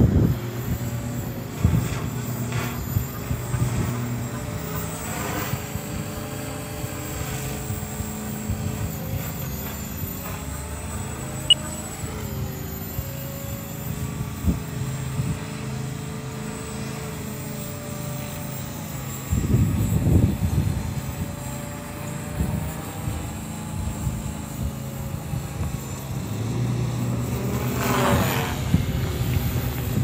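Walkera V450D03 radio-controlled helicopter flying in stunt (3D) mode: its electric motor and rotor hum steadily, the pitch rising and falling as it manoeuvres. Gusts of wind rumble on the microphone now and then.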